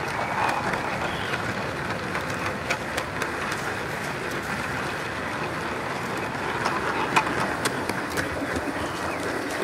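Gauge 1 model train running along a garden track, heard from on board: a steady rolling rumble and hiss, with a few sharp clicks of wheels over rail joints.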